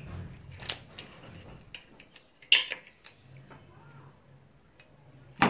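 A few sharp clicks and light knocks from a caulking gun and the plastic cable channel as mastic sealant is squeezed over the channel's holes. The loudest click comes about two and a half seconds in, with another near the end.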